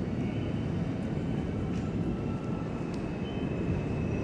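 Steady low rumble of a New York City subway train running through the station tunnel, with a faint thin high wheel squeal that grows a little toward the end.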